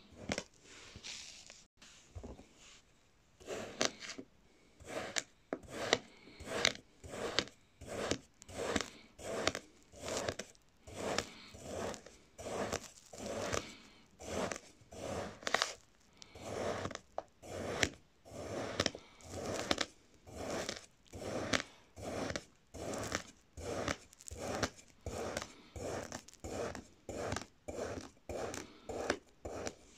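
A knife slicing through a packed block of green kinetic sand, cut after cut, each stroke a short scrape through the sand at about two a second, beginning in earnest about three seconds in.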